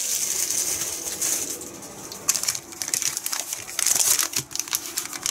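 Clear plastic packaging bags crinkling and rustling as they are handled, with a run of quick, irregular crackles in the second half.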